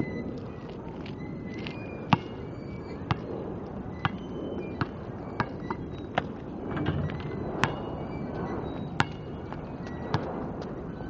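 A basketball bouncing on an asphalt court: sharp single bounces roughly once a second, coming a little quicker toward the middle.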